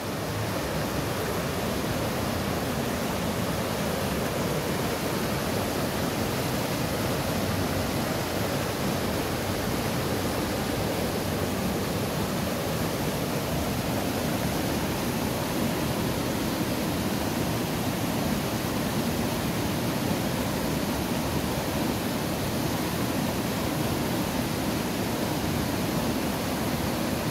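Rushing whitewater of a rocky mountain stream pouring over boulders in rapids, a steady, unbroken rush of water.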